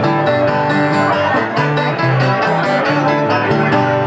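Live acoustic band playing an instrumental passage of a French chanson, with plucked string instruments carrying the tune over a stepping bass line.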